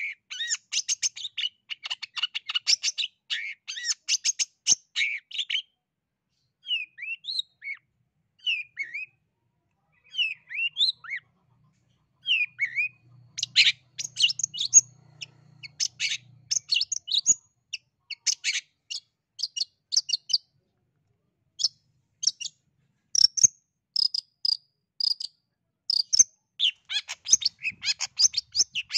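Long-tailed shrike (cendet) singing in full voice: runs of rapid, tightly packed chattering notes, broken in between by slower, separate whistled notes that slide up and down in pitch.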